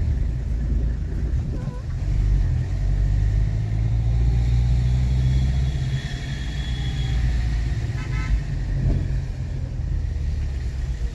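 A car running along the road: a steady low rumble of engine and tyres. About eight seconds in there is a short horn toot.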